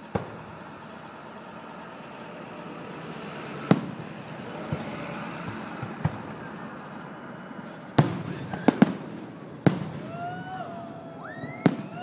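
Aerial fireworks shells bursting overhead: a series of sharp bangs, several close together, with a quick double bang past the middle. Rising-and-falling whistles sound near the end.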